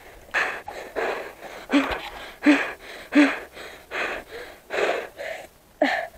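A cyclist's hard, rhythmic panting, about two breaths a second, some with a short voiced grunt, from the effort of pedalling a mountain bike over rough ploughed soil.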